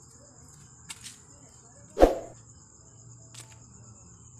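Crickets trilling steadily, with a single knock about two seconds in and a few faint clicks.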